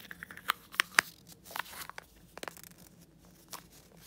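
Cellophane treat bags in an Easter basket crinkling and crackling under a hand: a scatter of short, sharp crackles, the loudest about a second in.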